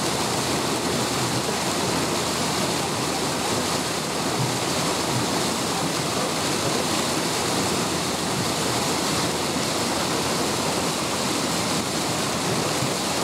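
Steady rush of flowing water in a canal, an even noise with no separate splashes or calls standing out.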